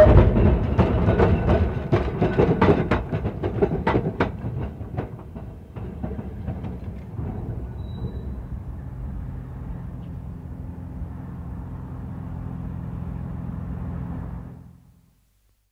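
Blackpool tram's wheels clattering over points in a quick run of sharp clicks over a rumble, growing fainter as the tram moves away. This leaves a steady low hum that fades out near the end.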